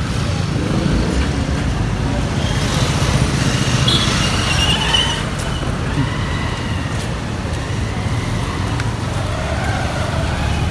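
Single-cylinder engine of a KTM 250 Adventure motorcycle running steadily while riding, with surrounding road traffic.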